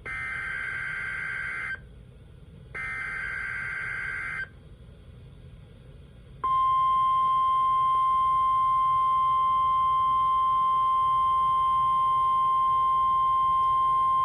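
NOAA Weather Radio EAS alert: two SAME header data bursts, each a harsh buzzing warble about a second and a half long with a short gap between. About two seconds later the steady 1050 Hz warning tone starts and holds, the loudest sound here. The sequence introduces a severe thunderstorm watch message.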